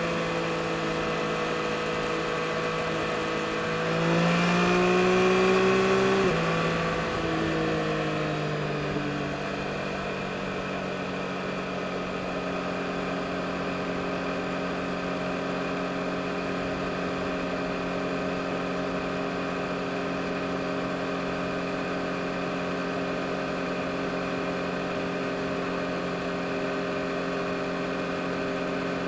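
2022 Yamaha MT-09 SP's 890 cc inline-three engine running under way. The revs rise briefly about four seconds in and drop sharply about six seconds in, then the engine holds a steady note at constant speed.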